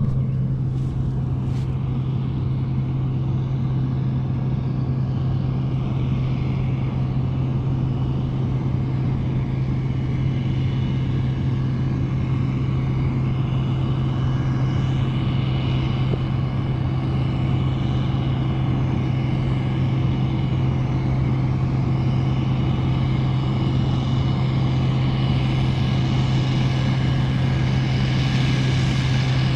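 Truck engine running at a constant speed while driving, a steady low hum with a faint high whine over it.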